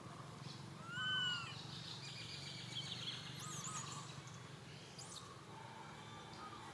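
A baby long-tailed macaque gives one short, arching whimper about a second in, over steady outdoor background noise with faint bird chirps around the middle.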